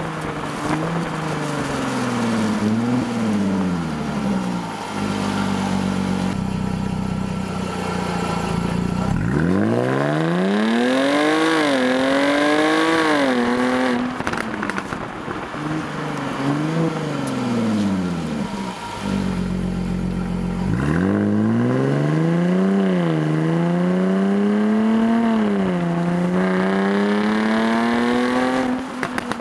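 Jaguar F-Type S's supercharged 3.0-litre V6 heard at the exhaust while driving. It makes two hard pulls, one about a third of the way in and one about two-thirds in, each climbing in pitch with a short dip at every upshift. Between them the revs fall away as the car slows.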